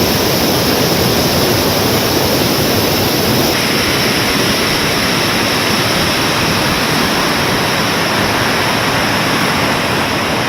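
Close, steady rush of a large waterfall, Diamond Creek Falls, pouring in full flow; the tone of the roar shifts slightly about three and a half seconds in.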